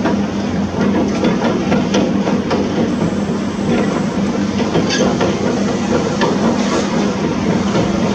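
Heavy construction machinery working: a diesel engine runs steadily, with scattered short metallic clanks and knocks throughout.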